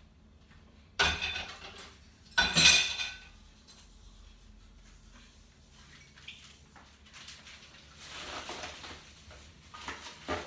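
Dishes and cutlery being handled at a kitchen counter: two loud clatters about a second and a half apart, the second the louder, then softer clinking and rattling later on.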